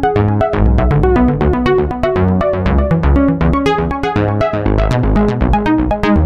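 Instrumental background music with keyboards, a bass line and a steady drum beat.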